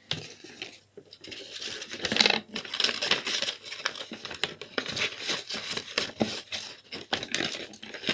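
Paper envelope rustling and crinkling close to the microphone, with many small clicks and knocks of handling, starting abruptly.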